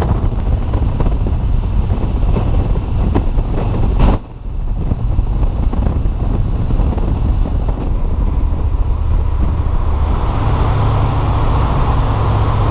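Harley-Davidson Street Glide's V-twin engine running at road speed, with wind rushing over the microphone. The sound drops out briefly about four seconds in and then carries on as before.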